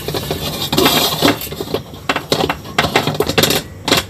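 Half a white radish on a chopstick rubbed and scraped over a hot aluminium wok, with a quick irregular series of scrapes and clinks of the chopstick against the metal. The radish is being rubbed over the heated pan to season it so fish won't stick.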